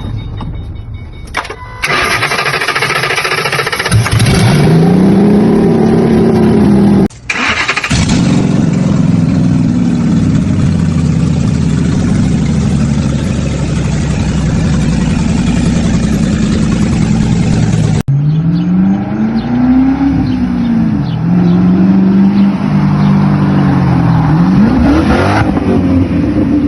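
Ford Mustang V8 engine, loud, coming on about two seconds in and revved up and down several times, with a long stretch of steady running in between; the sound breaks off abruptly twice, as at cuts.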